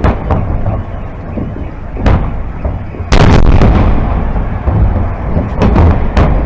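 Aerial fireworks shells bursting: several sharp bangs, the loudest a little past three seconds in, over a steady low rumble from the display.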